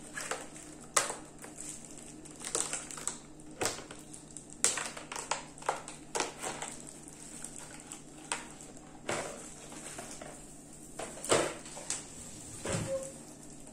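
Thin clear plastic acetate egg mould flexing and crackling as a set chocolate shell is popped out of it, with the thin chocolate edges snapping off: irregular sharp crackles and clicks.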